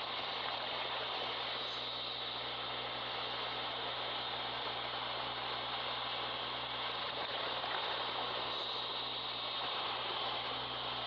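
Steady hiss with a low, even hum underneath, the self-noise of a Hi-8 camcorder recording underwater, with two faint high ticks about seven seconds apart.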